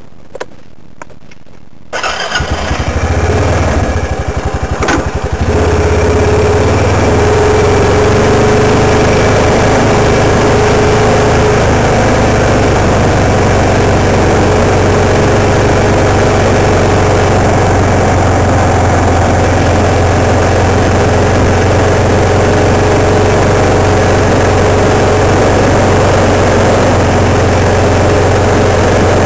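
ATV (quad) engine running at a steady low riding speed, a loud constant drone. It comes in abruptly about two seconds in and settles into an even note about five seconds in.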